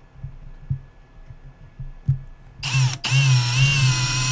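Cordless drill with a long twist bit spinning up about two-thirds of the way in, with a brief catch, then running at a steady high whine as it bores a hole in a PVC pipe end cap. A few soft knocks come before it.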